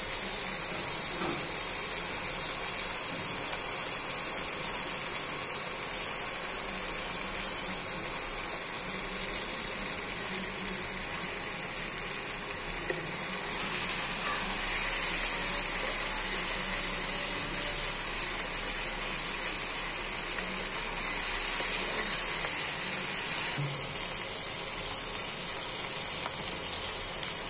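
Chicken and potato curry sizzling in a non-stick pan as it is turned with a wooden spatula: a steady frying hiss that swells twice, about halfway through and again a few seconds later.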